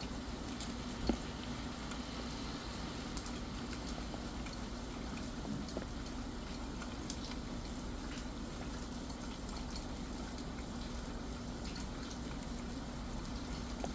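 Steady rain with scattered drops tapping, and one louder tap about a second in.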